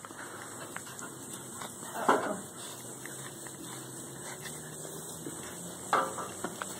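Great Dane puppies scuffling and chewing in the grass: a light steady rustling, with two brief louder noises about two seconds in and again near six seconds.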